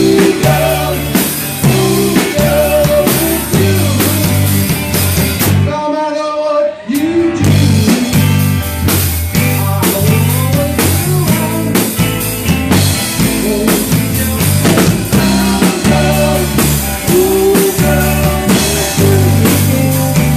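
Live rock band playing: drum kit, electric guitar and singing. About six seconds in the drums and bass drop out for a second or so, leaving a held note, then the full band comes back in.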